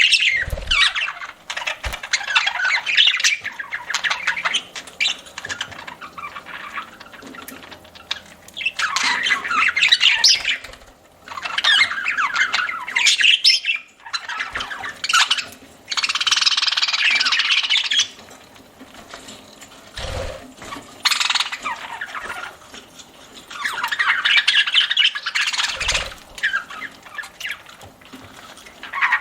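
Pet budgerigars chattering and squawking in bursts a few seconds long, separated by quieter stretches, with a few brief low knocks.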